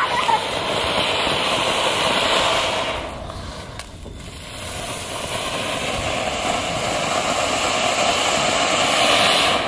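Anar (flower pot) firework fountains spraying sparks with a steady, loud hiss. The hiss drops away about three seconds in, then builds up again and holds.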